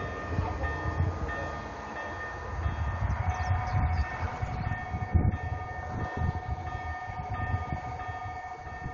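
Railway level-crossing warning bell ringing in a steady repeating pattern while the crossing barrier arms lower, over a low uneven rumble. A second steady tone joins about three seconds in.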